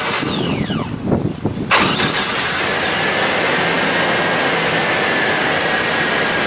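1989 Chevy truck's 4.3 V6 engine cranking on the starter and catching just under two seconds in, then running steadily. The engine is running on a carburetor that replaced its throttle-body fuel injection, primed with gas poured into the carburetor.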